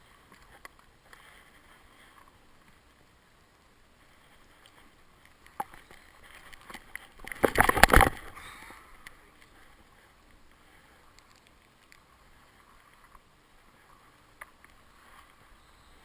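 Camera scuffing against a knit wool hat: a loud, scratchy rustle of fabric on the camera housing about seven to eight seconds in. The rest is faint handling rustle with a few light clicks.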